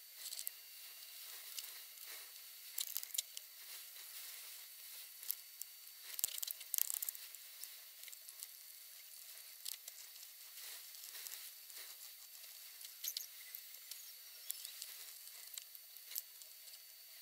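Faint, rapid small clicks, taps and scratchy hiss from tools and robot parts being handled on a workbench, with a denser burst of clicks about six to seven seconds in.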